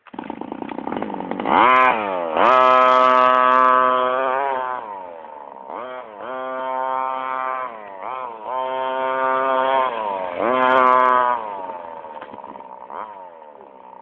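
Small two-stroke engine of a Carson Comanche radio-controlled petrol monster truck, revving up to high, held revs and dropping back several times as it is driven.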